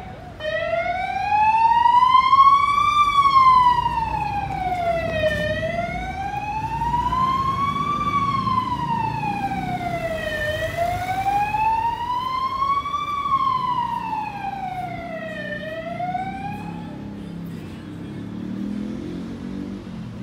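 Emergency vehicle siren wailing, its pitch sweeping slowly up and down about every five seconds; loudest a couple of seconds in, then fading, and it stops a few seconds before the end. A low traffic rumble runs underneath.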